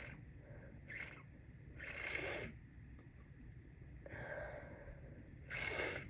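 A heavily congested person sniffling and blowing through a blocked nose: four short, noisy breaths a second or two apart, the last one the loudest.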